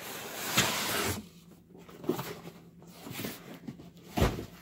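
Foam packing and cardboard box handled as a computer monitor is pulled out: a scraping, rustling stretch for about the first second, then scattered creaks and knocks, and a heavier thump near the end.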